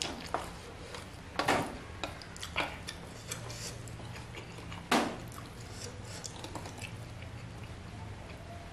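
Wooden chopsticks tapping and scraping against a stainless steel tray while stirring and picking up noodles: a handful of sharp clicks, the loudest about five seconds in.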